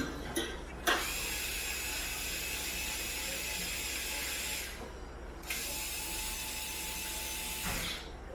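Electric screwdriver running to drive a screw into a metal dish rack, in two steady runs of about four and two and a half seconds with a short pause between.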